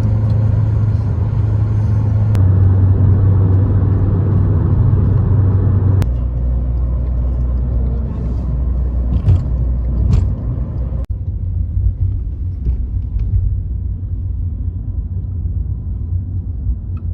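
Car in motion: a steady low rumble of engine and road noise, heard in three short clips that change abruptly about 6 and 11 seconds in.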